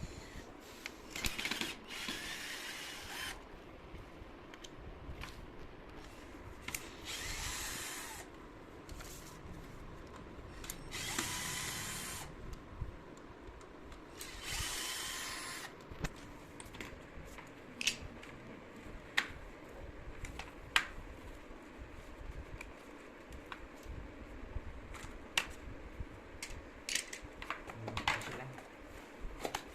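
Electric drill whirring in four short runs of a second or two each, driving out screws while the washing machine's control board is being changed; later, scattered light clicks and knocks of parts being handled.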